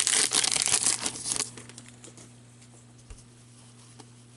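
Wrapper of a hockey card pack torn open and crinkled for about a second and a half, then quiet apart from a low steady hum.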